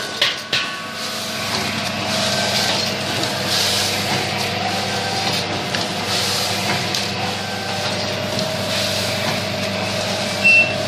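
Stainless sachet packing machine running as it packs salt: a steady motor hum with a repeating mechanical cycle of hissy clatter. Two knocks about half a second in and a short high beep near the end.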